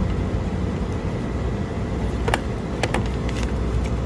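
Steady low background rumble, with a few sharp clicks about two to three and a half seconds in as an analog multimeter and its test leads are handled.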